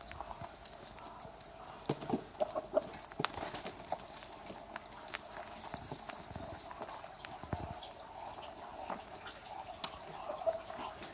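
Muscovy ducks hissing, with a breathy hiss about halfway through, among scattered sharp taps and knocks.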